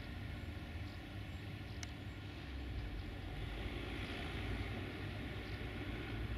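Steady low rumble of a train running, with a faint click about two seconds in.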